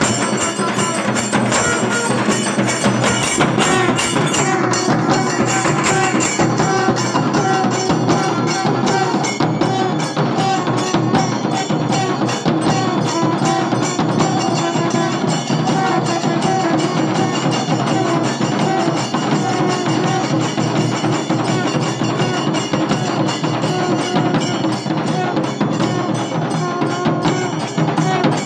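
Kailaya vathiyam, the Shaivite temple ensemble: long brass horns blowing held notes over fast, steady drumming from several stick-played drums, with hand cymbals.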